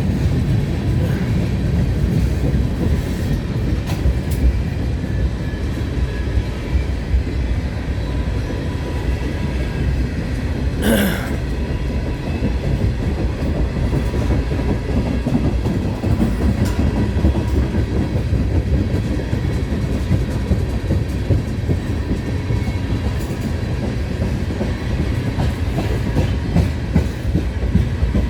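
Freight cars of a CN freight train rolling past as a steady low rumble, with wheels clicking over the rail, and one brief sharp squeal about eleven seconds in.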